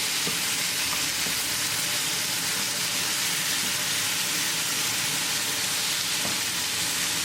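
Thin slices of chicken breast sizzling steadily in hot oil and tomato-spice masala in a fry pan over high gas, with a few faint knocks of stirring.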